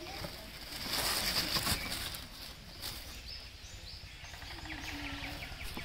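Tissue paper rustling and crinkling as a shoe is pulled out of its wrapping in a cardboard shoebox, loudest about a second in. Faint bird chirps follow near the middle.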